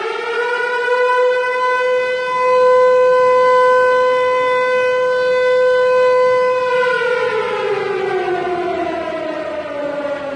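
Civil defense siren, reportedly a Harry O Ricci (H.O.R.) Siro-Drone, the stock Hollywood siren sound. It reaches full pitch in the first half-second, holds one steady wailing tone for about six seconds, then winds down with a falling pitch over the last three seconds or so.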